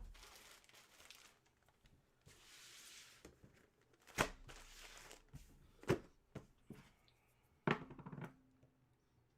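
Soft rustling of paper or packaging, then three sharp knocks on a hard surface, the last followed by a brief rattle.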